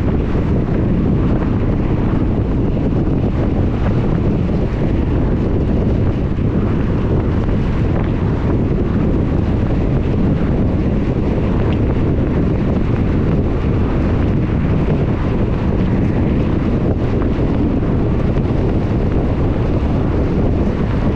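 Steady low rumble of road and wind noise from a moving car, even throughout with no changes.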